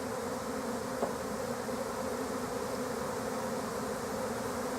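A large swarm of honey bees buzzing in flight, a steady dense hum with a low drone, as the swarm gathers around a nest cavity to move in.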